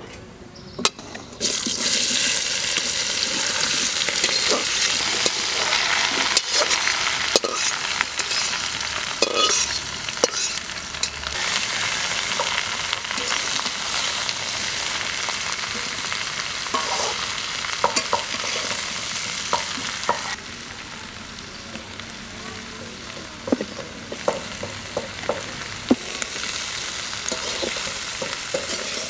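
Mixed vegetables dropped into hot oil in a metal kadai, bursting into a loud sizzle about a second and a half in, then frying while a metal spatula stirs and scrapes them with sharp clicks against the pan. The sizzle drops quieter about two-thirds of the way through.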